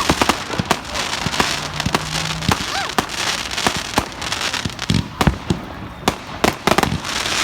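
Fireworks going off: a rapid, irregular string of sharp bangs and crackles over a steady hiss.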